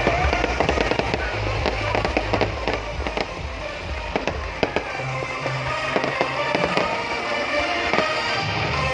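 Fireworks display: rapid, irregular bangs and crackling bursts of aerial shells, heard over loud music with a heavy bass beat.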